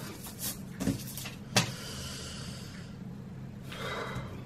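Paper sheets being slid and shuffled by hand across a glass tabletop, with a few sharp knocks on the glass; the sharpest comes about a second and a half in. A steady low hum runs underneath.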